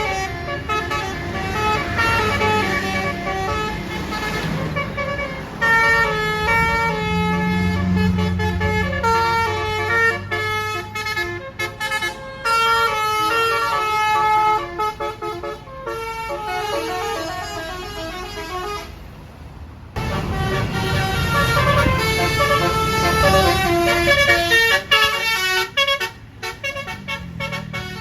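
Basuri multi-note air horns on tour buses playing telolet tunes: a rapid run of stepped horn notes, with the bus engine running beneath. About twenty seconds in, one tune breaks off and another horn tune starts at once.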